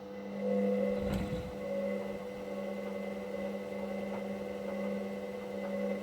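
Hoover Dynamic Next washer-dryer starting up on its drying cycle: a steady motor hum sets in, with a single low thud about a second in.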